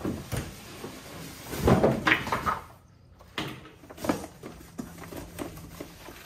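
Cardboard shipping carton being lifted and slid off foam packing, with cardboard rubbing and scraping, loudest about two seconds in. After a brief pause, knocks and rustles as a smaller cardboard box is lifted out of the foam.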